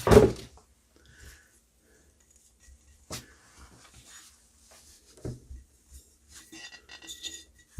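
Polystyrene packing and a ceramic incense burner being handled: a sharp knock at the start, a few light clicks and rustles, and a cluster of quick faint scrapes near the end.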